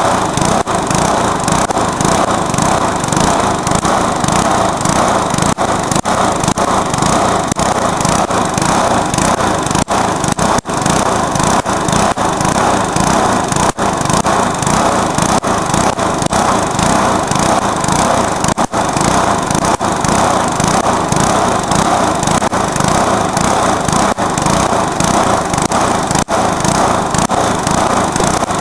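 Briggs & Stratton single-cylinder lawnmower engine running loud and steady, with a few brief stumbles, as it is deliberately run to destruction.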